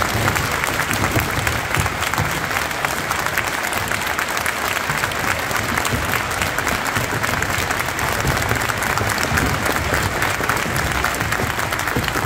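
A large crowd applauding, a steady, continuous clapping that holds at an even level throughout.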